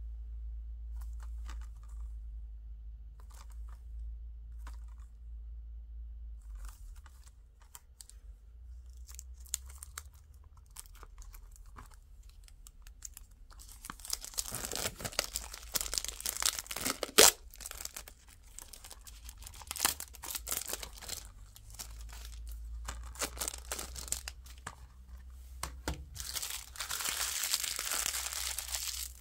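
Clear plastic shrink wrap being torn and peeled off a Blu-ray case. It crinkles densely from about halfway, with one sharp snap a few seconds in, and is crumpled in the hand near the end. Light scattered clicks from handling come before, over a low steady hum.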